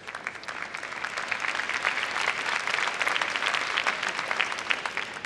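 Audience applauding: many hands clapping, the applause building over the first second, staying full through the middle and easing off near the end.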